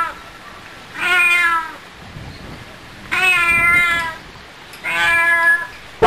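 Three drawn-out animal calls, each under a second long and about two seconds apart, with quieter background noise between them.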